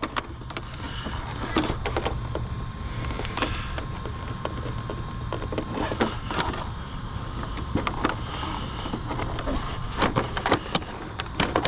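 Scattered plastic clicks and knocks from hands working on an RC basher's chassis, tightening it up, over a steady low rumble.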